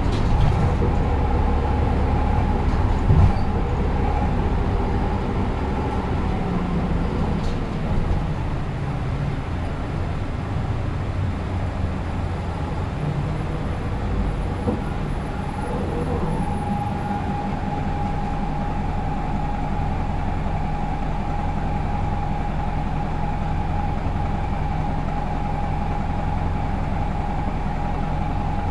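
Inside a route bus under way: steady low engine hum and road noise through the cabin, with a brief knock about three seconds in. A steady whine joins about halfway through and holds.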